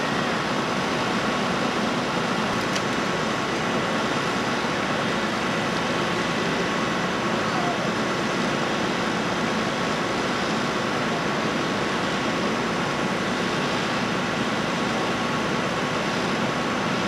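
Engines running steadily, an unbroken drone with a constant whine over it, as from the hydraulic rescue-tool power units and fire apparatus kept running during a vehicle extrication.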